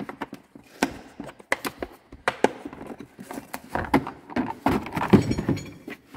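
Hard plastic tool cases being handled and set down: a string of irregular clunks, clicks and rattles, the loudest about five seconds in.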